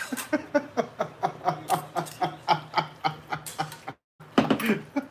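A man laughing in a quick run of short voiced pulses, about six a second, cut by a brief dropout of the sound near the end.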